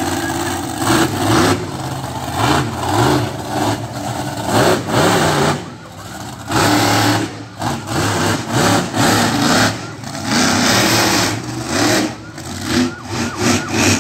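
Backdraft monster truck's engine revving hard in repeated bursts, the level rising and falling as it drives its freestyle run.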